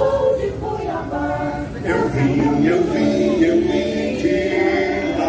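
A choir singing, voices holding long sustained notes.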